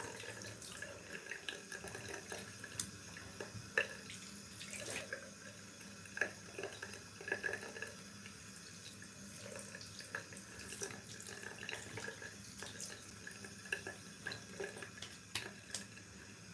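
Tap running into a bathroom sink while water is splashed onto the face to rinse off shaving lather, with irregular splashes over the steady flow.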